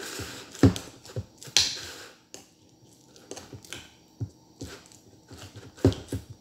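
Metal spoon clinking and knocking against the inside of a glass jar in a few irregular strokes, as fermenting rice and fish are pressed down in it.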